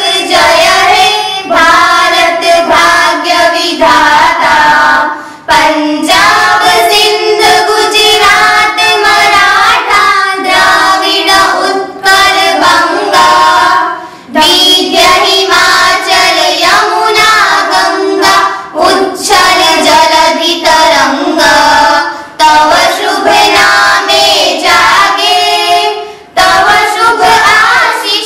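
A group of schoolgirls singing a song together into a microphone. The phrases are broken by short pauses every several seconds.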